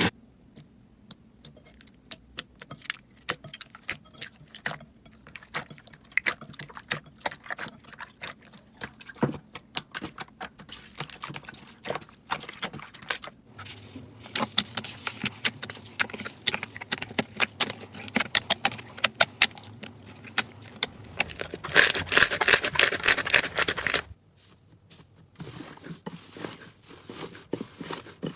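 Slime being squeezed, pressed and poked by hand, giving many small crackling clicks and pops. The crackling is sparse at first, grows dense and loud in the middle, then drops off suddenly to quieter clicking near the end.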